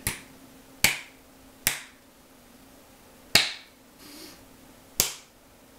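Five sharp snaps at irregular intervals, each with a short ringing tail.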